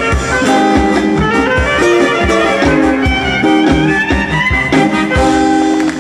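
Macedonian folk dance music from a brass band, with brass and reed melody lines over a steady drum beat. The music stops at the very end.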